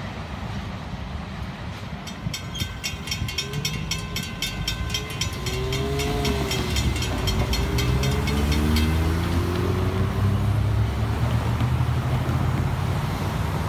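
Railroad crossing bells ringing in a rapid, even beat that stops about nine seconds in, while cars pull away over the crossing with engines revving up. A car's engine and tyres grow louder near the end.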